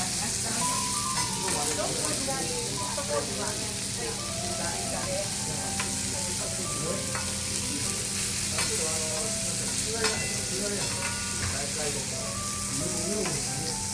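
Food sizzling steadily on a teppanyaki griddle, with a few light clicks of utensils.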